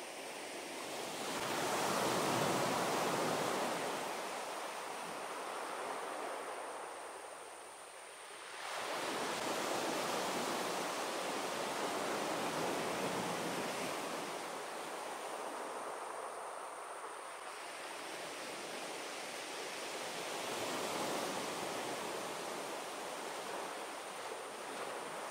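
Sea waves breaking and washing up a beach: a steady rushing surf that swells about two seconds in, eases, then rises again at about nine seconds.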